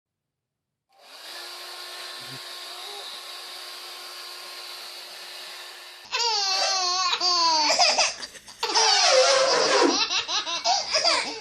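A steady hum for several seconds, then a baby breaking into loud belly laughter in repeated bursts from about halfway through.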